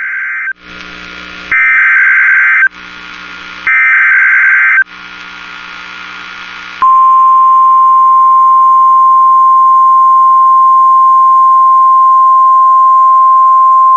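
Emergency Alert System header: three short bursts of rasping digital data tones, each about a second long with radio static between them. About seven seconds in, the steady single-pitch weather-radio warning alarm tone begins, announcing a severe thunderstorm warning.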